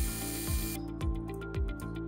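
Background music with a steady kick-drum beat about twice a second and ticking hi-hats. Under it, for the first part, the hiss of an end mill cutting aluminium on a milling machine cuts off abruptly under a second in.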